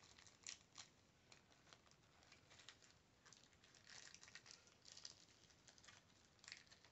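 Faint rustling and crinkling of an old wax-paper baseball card pack wrapper being handled as the cards are pulled out, in short scattered bursts.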